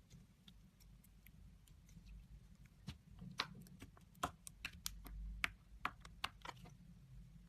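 Slime being squeezed and worked by hand, giving a run of sharp, sticky clicks and pops that grow thicker and louder from about three seconds in.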